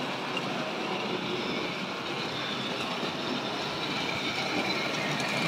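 Model railway saddle tank locomotive running along the track, its small electric motor and wheels making a steady running noise.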